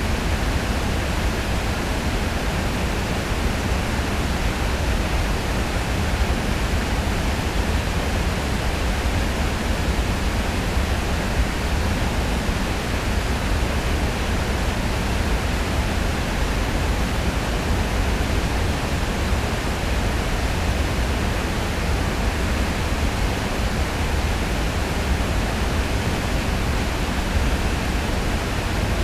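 Heavy river water pouring over a weir: a loud, steady rush with a deep rumble underneath.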